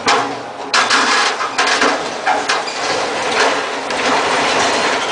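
Truck-mounted crane overturning on a dock as the boat it was lifting drops into the water: a run of loud crashes and bangs over a continuous noisy wash.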